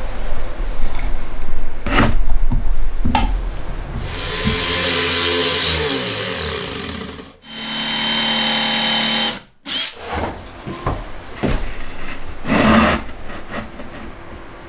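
Electric drill boring a hole in plywood with a wood bit, running twice for a few seconds. The first run's pitch slides down, and the second is steady with a high whine. Knocks and taps come before and after the drilling.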